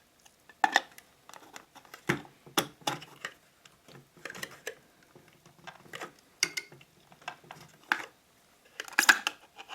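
A watch on its sprung cushion being handled and fitted into a watch winder's holder: irregular clicks, knocks and light rattles, loudest near the start, about two seconds in, and near the end.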